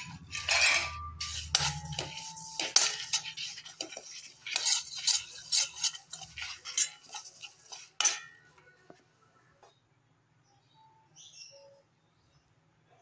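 A metal spoon stirring and scraping black sesame seeds, coriander seeds and dried red chillies around a steel pan, with rattling clinks and scrapes, for about eight seconds. Then it stops and goes almost quiet.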